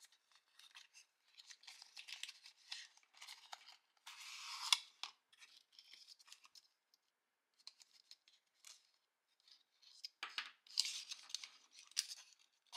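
A small cardboard product box being handled and opened: cardboard and a plastic insert tray sliding and scraping, with paper rustling, in short scattered bursts, louder about four to five seconds in and again near the end.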